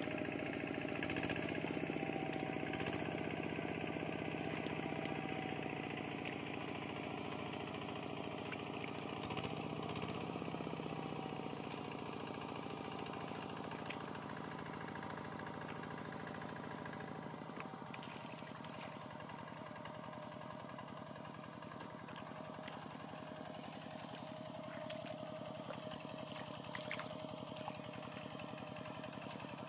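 A small engine running steadily with a fast, even pulse. It eases off a little past the middle. A few short clicks sound over it.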